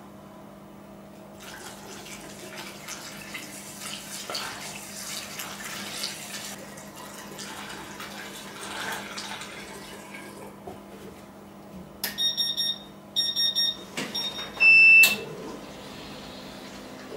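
Distilled water being poured into a laser cutter's water chiller, an uneven trickling hiss lasting several seconds. It is followed by electronic beeping: two short runs of high beeps, then one louder, longer beep.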